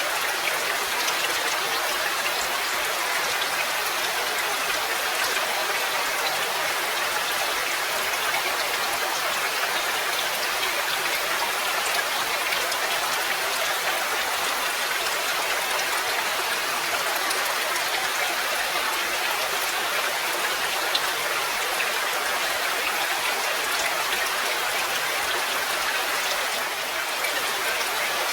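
Steady rain falling: an even hiss with many fine individual drops pattering through it.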